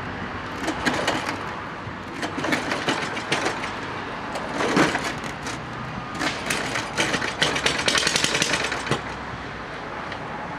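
Old snowblower's small gas engine being pull-started and catching, running unevenly with irregular popping and clatter that eases to a steadier run about nine seconds in. It skips and putts.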